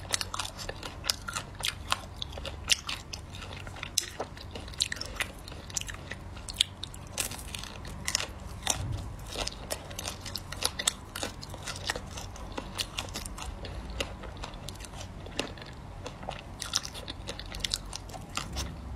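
Biting and chewing a hard-frozen ice cream bar close to the microphone: a long, irregular run of sharp crunches and crackles with chewing in between.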